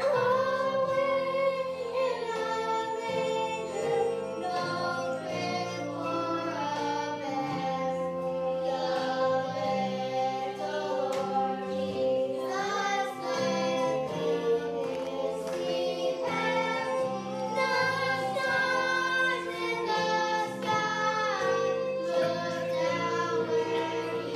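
Three children singing a song together into one microphone, over a steady instrumental accompaniment of sustained chords.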